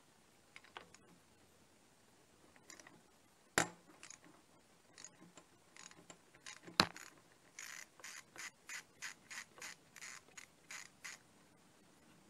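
Socket ratchet working a bolt on a motorcycle cylinder head: two sharp metallic clicks, then a quick run of about a dozen short ratcheting strokes, roughly four a second.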